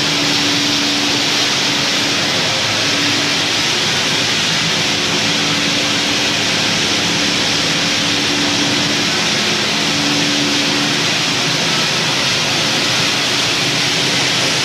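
Olive oil mill machinery running, the malaxer and centrifugal separator together making a loud, steady mechanical din. A hum runs through it and drops out briefly now and then.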